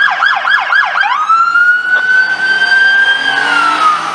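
Police car siren sounding loud in the fast yelp, about four quick sweeps a second. About a second in it switches to the slow wail, a long tone that rises, holds, then slowly falls.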